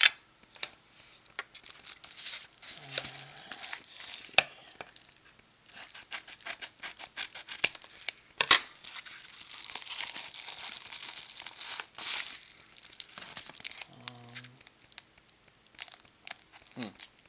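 Paper padded mailer being torn open by hand, then the plastic wrapping inside crinkled: a string of sharp rips and rustles, densest in the middle.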